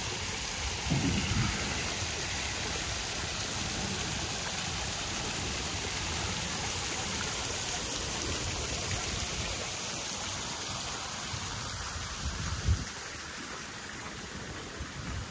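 Steady rush of running water that eases a little near the end, with a low thump about a second in and a sharper one near the end.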